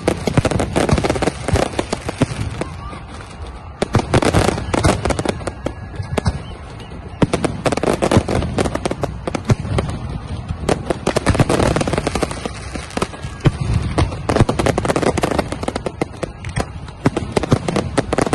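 Aerial fireworks shells bursting and crackling in rapid, overlapping volleys that come in waves every few seconds.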